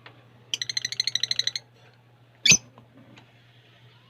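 Pet lovebirds calling: a rapid, even, high-pitched chattering trill of about a dozen notes a second that lasts about a second, then a single sharp squawk about two and a half seconds in. A faint steady low hum runs underneath.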